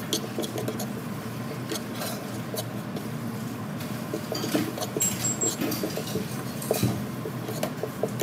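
Metal spoon stirring sesame seeds as they dry-toast in a small nonstick frying pan: a patter of moving seeds with irregular scrapes and clicks of the spoon against the pan.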